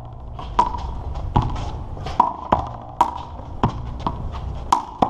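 Rubber handball rally: sharp smacks of the ball off hands, wall and pavement in quick succession, about eight in all, each with a short ringing echo, over a low steady rumble.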